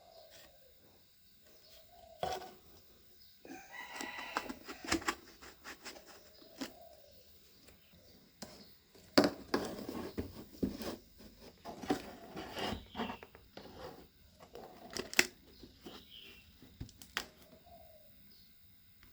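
Cardboard being handled and worked: irregular crinkling, tearing and sharp knocks in bursts, with quieter pauses between.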